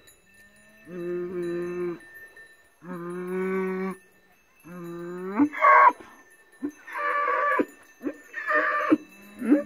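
Cattle mooing repeatedly: three long, low, steady moos, then shorter, higher calls about every second. A cowbell rings faintly behind them.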